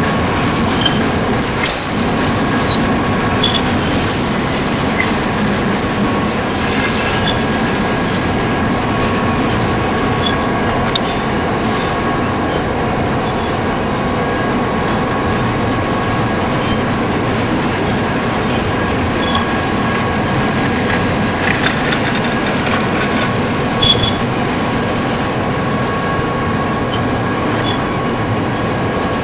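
Double-stack container train's well cars rolling past close by: a steady rumble of steel wheels on rail, with a faint high whine from the wheels that comes and goes and scattered clicks, one sharper click about three-quarters of the way through.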